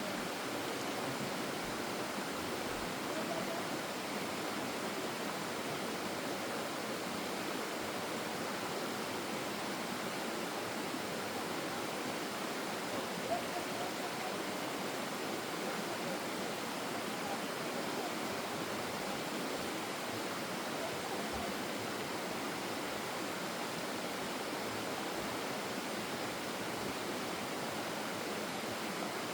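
Forest stream flowing over rocks: a steady, even rush of running water.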